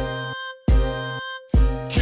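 Dance music: a deep bass note under a held synth chord, struck twice, with a brighter, busier drum pattern coming in about one and a half seconds in.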